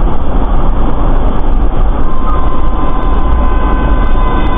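Loud, steady rumble of road and vehicle noise picked up by a dash cam in a moving vehicle. A steady high tone joins about two seconds in, and a few fainter tones come in near the end.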